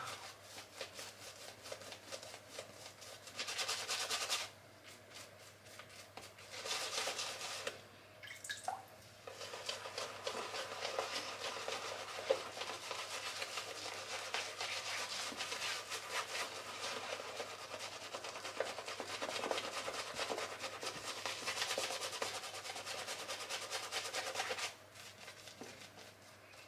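Three-band badger shaving brush working shaving-soap lather over the face, in two short spells and then steadily from about nine seconds in until it stops shortly before the end.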